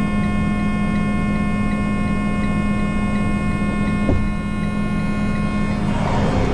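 Annoying steady electrical buzzing: a low hum with a stack of higher overtones and a faint ticking pulse about three times a second. A single knock about four seconds in, and a rush of noise coming up near the end.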